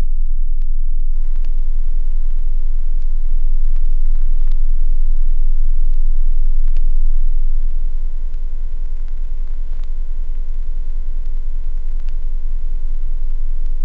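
Steady sound-design drone: a loud deep rumble, joined about a second in by a buzzing hum of many steady tones like electrical mains hum, with faint scattered crackles. It eases off a little about eight seconds in.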